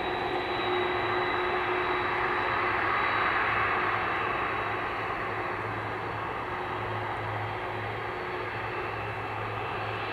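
Boeing 747-400's four General Electric CF6 turbofans running at taxi power: a steady jet whine with a thin high tone, easing slightly in level about halfway through.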